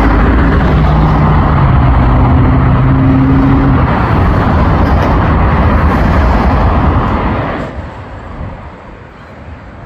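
Loud, steady engine roar with a low hum, falling away sharply about three-quarters of the way through.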